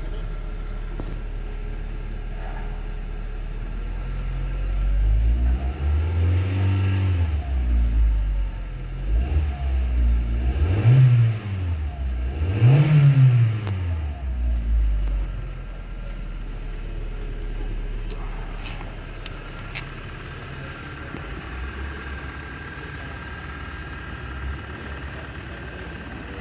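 A 2018 Hyundai i30's 2.0-litre four-cylinder petrol engine idling, then revved with one slower rise and fall followed by two quick blips, before dropping back to a steady idle. It is a test-run of a salvaged engine that the wreckers rate as tested good.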